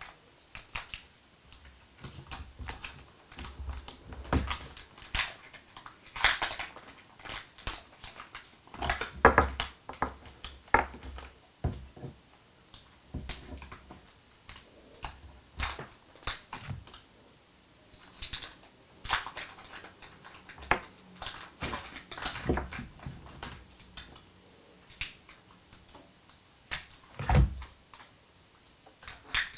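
Plastic wrappers of Ritter Sport mini chocolate bars crinkling and crackling in irregular spells as they are torn open and peeled off by hand, with a few soft knocks, the clearest near the end.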